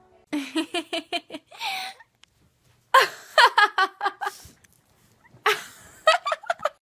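Young women laughing hard, in three bouts of quick repeated ha-ha pulses with short pauses between them.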